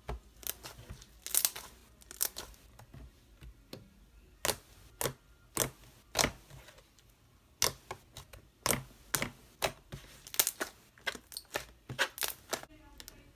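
Homemade fluffy slime being squished, poked and stretched by hand, giving an irregular string of sharp pops and crackles, some in quick clusters.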